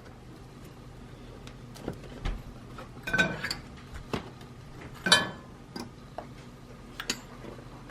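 A few light clinks and knocks of kitchen utensils and dishes, spaced about a second apart, a couple of them ringing briefly.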